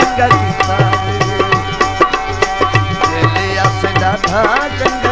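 Instrumental break in a Punjabi folk song: hand drums keep a steady beat under a melody with sliding notes and a held drone.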